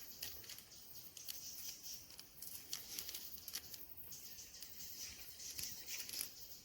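Faint outdoor ambience: scattered small clicks and rustles over a steady high hiss.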